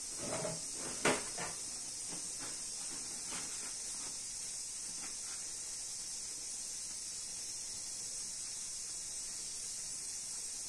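A sheet of paper towel is pulled from a roll with a sharp snap about a second in. Faint paper crinkling follows as wet hands are dried with it, over a steady background hiss.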